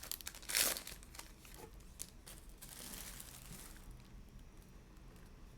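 Foil wrapper of a Donruss basketball card pack being torn open and crinkled, with a few light clicks. It dies down about four seconds in.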